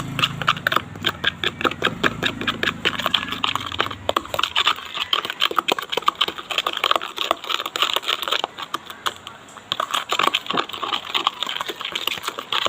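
Sugar being stirred into a little water in a small container: a fast, continuous run of scraping clicks from the stirrer against the container and the undissolved sugar.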